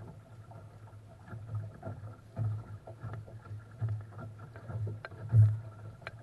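Water lapping and gurgling against a small sailing dinghy's hull, in uneven low pulses with light knocks and ticks and one louder thump just after five seconds in.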